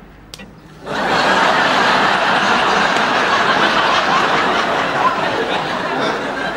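Studio audience laughing, breaking out suddenly about a second in and carrying on loudly, preceded by a small click.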